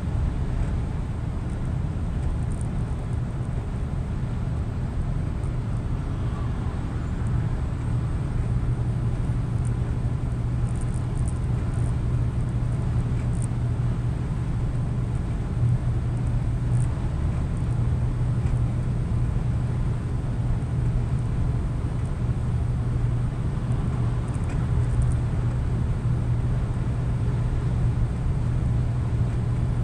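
Scania truck cruising on a motorway, heard from inside the cab: a steady low engine drone over tyre and road noise, a little louder from about eight seconds in.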